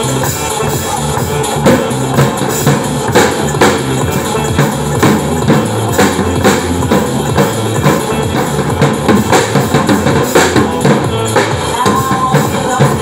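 Drum kit played live along with a recorded electronic dance track, the drum hits standing out about twice a second over the music's steady beat.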